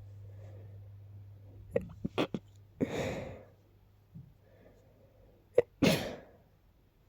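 A stuffy person with a cold sneezing twice, about three seconds apart. The first sneeze follows a run of quick, sharp catching breaths, and the second follows a single sharp catch.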